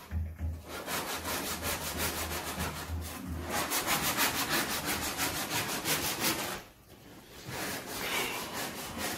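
Hand sanding of body filler on a car body panel: fast back-and-forth rubbing strokes, several a second, with a short pause about two-thirds through.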